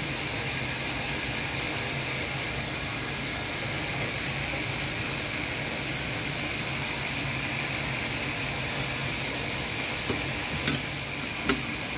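Steady mechanical hum and hiss of running machinery with a low drone underneath, and two sharp clicks near the end.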